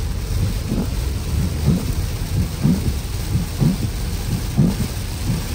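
Heavy rain on a moving car, heard from inside: a steady low rumble under a wash of rain noise. A short swish repeats about once a second, typical of windshield wipers on a fast setting.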